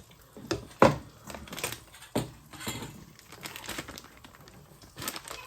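Kitchen handling noises: scattered sharp clicks and knocks of containers and utensils on the counter with light rustling, the loudest knock about a second in.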